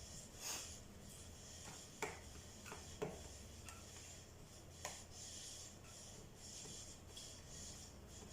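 Faint handling sounds of a plastic toy RC truck and its battery pack: soft rubbing with a few light clicks and knocks, the sharpest about two seconds in and again near five seconds.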